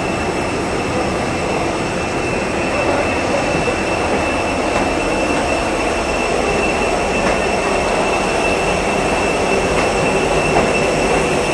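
Steady, loud vehicle-cabin rumble with a constant high-pitched whine running through it.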